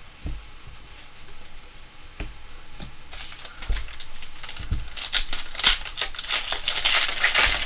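Foil wrapper of a basketball trading-card pack crinkling and crackling as it is torn open by hand, starting about three seconds in and getting louder toward the end. Before that, a few soft low thumps of cards being handled.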